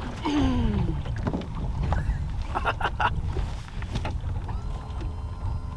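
Wind buffeting the microphone in an open boat, a steady low rumble throughout. A short falling whoop of excitement comes right at the start, and a few sharp knocks follow about three seconds in as the hooked bass is brought aboard.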